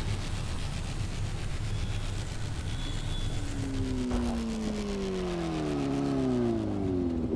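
Motor scooter engine running, its pitch falling steadily over the last few seconds as it slows, over a steady low traffic hum.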